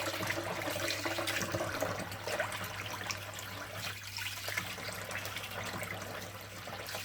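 Hot water running steadily from a tap.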